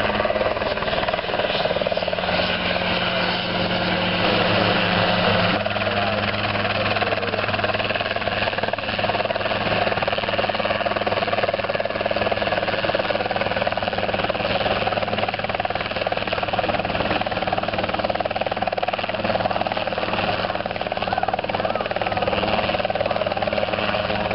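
Helisport CH-77 ultralight helicopter hovering low, its engine and rotor running steadily, the engine note shifting slightly about five seconds in.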